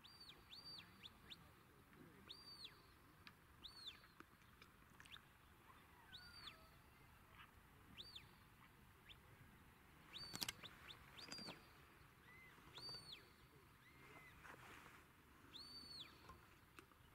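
Faint shepherd's whistle commands to a working sheepdog: short, high whistled notes that rise, hold and drop, repeated every second or two, with a few lower flat notes. A sharp click about ten seconds in is the loudest sound.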